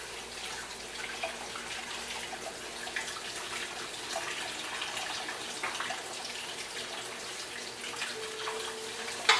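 Water running steadily from a tap into a sink or basin.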